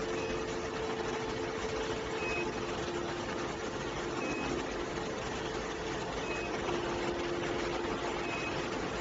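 Machinery running steadily with a constant hum, and a short high beep repeating about every two seconds.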